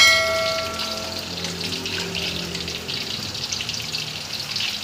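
Chicken stock poured into a hot wok, hissing and bubbling. A metal clang at the very start rings out for about a second and a half.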